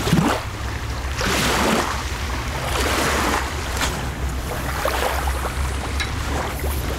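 Wind buffeting the microphone: a steady low rumble with gusts of hiss swelling every second or two.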